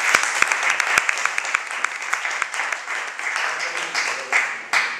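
A small audience applauding, many hands clapping at once, dying away near the end.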